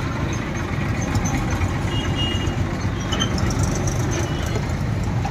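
Steady low rumble of road traffic and running vehicle engines.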